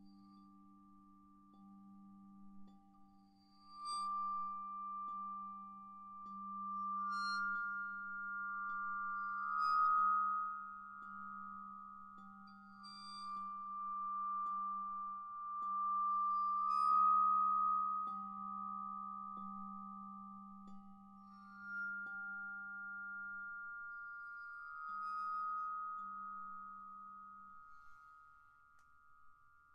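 Bowed Yamaha vibraphone: a bow drawn across the metal bars every few seconds draws out pure, sustained high tones that swell and fade. Two neighbouring notes overlap, over a lower note humming beneath that dies away near the end.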